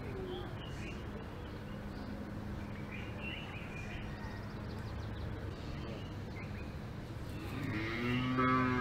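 A cow lowing once, loud and drawn out, near the end, over a steady low outdoor background with a few faint chirps.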